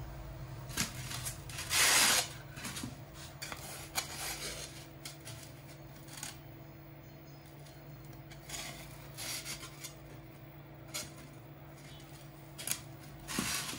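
Hot-wire-cut foam pieces being handled: foam rubbing and scraping against foam as the cut parts are lifted out of the block, in separate bursts, loudest about two seconds in and again near the end. A steady low hum runs underneath.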